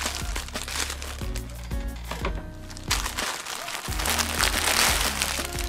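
Plastic courier pouch crinkling and rustling as it is handled and opened, loudest in the second half, over background music.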